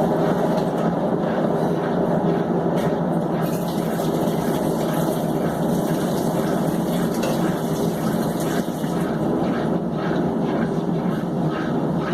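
Consul Maré 7.5 kg washing machine in its spin cycle, running with a loud, steady noise. The excessive spin noise is the fault for which a part is to be replaced.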